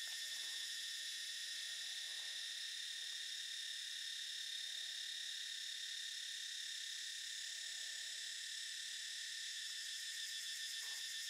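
Steady, shrill chorus of insects, a continuous drone on several high pitches with a fine even pulse. Underneath are a few faint soft rustles and a brief tap near the end.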